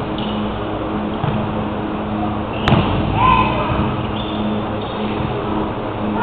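Volleyball rally in a gym: a single sharp slap of a hand hitting the ball about two and a half seconds in, followed by players' short shouts, over a steady low hum.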